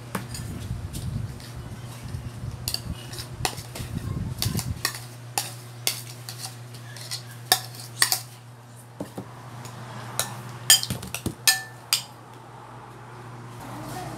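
Metal spoon and fork clinking and scraping against a ceramic plate and bowl as mashed potato is scraped off, in irregular sharp clinks. The loudest clink comes about eleven seconds in, over a steady low hum.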